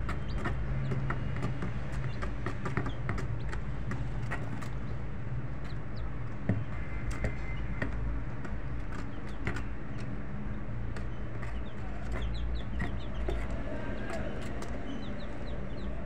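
Chickens clucking over a steady low hum, with many small clicks and chirps scattered through.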